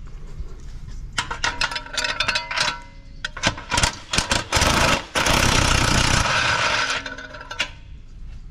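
Tools working exhaust bolts under a car: a string of sharp metallic clicks and clanks, some ringing briefly, then a loud steady noise for about two seconds before it stops.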